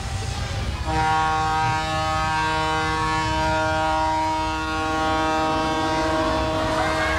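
A horn blares in one long steady note, starting about a second in, over a low rumble. It is part of the staged Catastrophe Canyon disaster effect.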